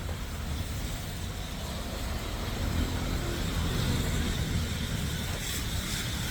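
City street traffic: a steady low rumble of passing vehicles, swelling a little around the middle.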